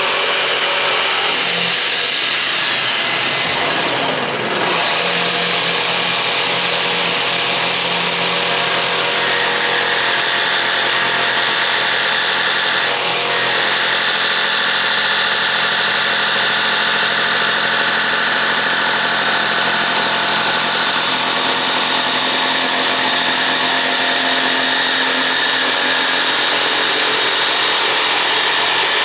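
Festool Trion jigsaw with a bi-metal blade running steadily as it cuts through a wooden drawer front, with a Festool CT33 dust extractor running alongside it, switched on by the saw's trigger. The sound dips briefly about four seconds in.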